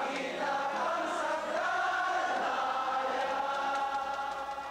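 Many voices singing together in long, held notes.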